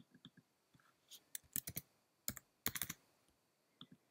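Faint typing on a computer keyboard: a quick, irregular run of key clicks as a short number is keyed in.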